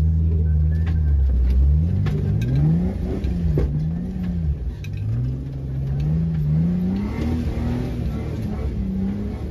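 Off-road Jeep's engine idling steadily, then revving up and down again and again from about two seconds in as it crawls up a boulder obstacle. A few sharp knocks and clicks come early in the climb.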